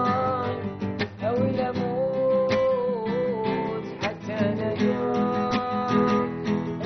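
Nylon-string classical guitar strummed in a steady rhythm, with a man singing a held, wavering melody over it.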